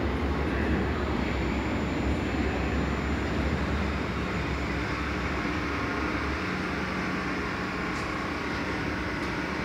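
Munich U-Bahn train pulling into an underground station and slowing along the platform with a continuous rumble. The deep rumble drops away about six seconds in as the train comes almost to a stop, leaving a steady low hum.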